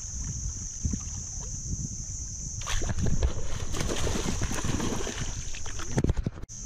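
A snakehead striking a topwater lure at the surface about two and a half seconds in: a sudden loud splash, then repeated splashing and thrashing as the hooked fish fights at the surface. Before the strike, water laps quietly against a small boat, and a steady high hiss runs under everything.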